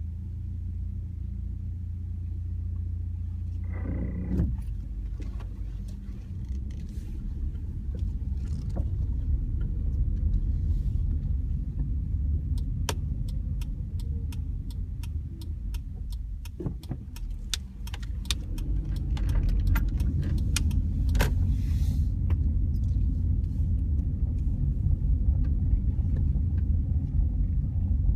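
2004 Honda Civic Hybrid's drivetrain giving a loud low rumble that swells a couple of times, the noise the owner puts down to the CVT transmission belt slipping, a common fault on this model (start-clutch judder). A run of sharp clicks comes in about midway.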